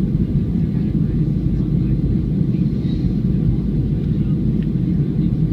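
Steady low rumble of a Boeing 737-300's CFM56-3 engines and the airflow over the airframe, heard inside the cabin from a seat over the wing.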